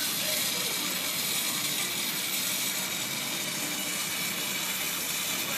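Glassblowing torch flame hissing steadily while glass is heated in the fire.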